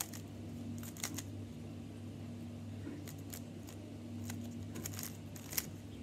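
GAN 356 Air M stickerless speed cube being turned by hand: irregular plastic clicks as its layers are twisted and snap into place, the loudest a little over five and a half seconds in.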